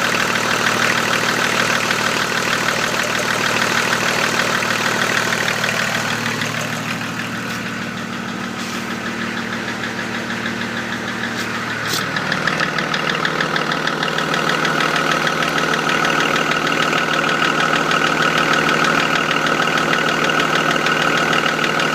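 BMW M51D25 2.5-litre inline-six turbodiesel running at idle with a steady rhythmic knock, a knock of unknown cause that the owner is trying to trace. The sound dips a little in the middle and then comes back, with the low engine note dropping a little about halfway through.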